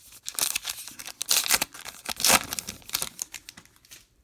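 Wrapper of a Topps baseball card pack being torn open and crinkled, an irregular crackling, loudest about a second and a half and two and a half seconds in.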